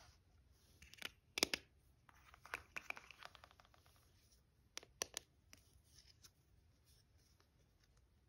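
Plastic toy pizza utensils (a pizza cutter, spatula and knife) clicking and clattering as they are picked up and handled, with a short scratchy stretch about three seconds in. The sharpest clicks come about one and a half seconds in, and two more come about five seconds in.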